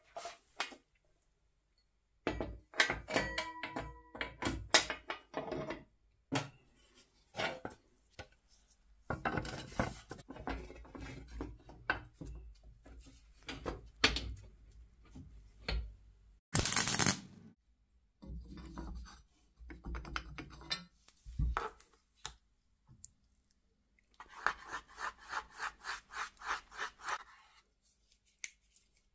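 Steel plow parts being handled and fitted together by hand: scattered knocks, scrapes and rubbing, with a short metallic ring a few seconds in. Near the end comes a run of quick, even strokes, about four a second.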